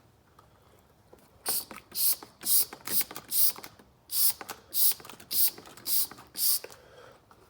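Trigger spray bottle squirted about ten times, a short hiss with each pull, roughly two a second with a brief pause midway.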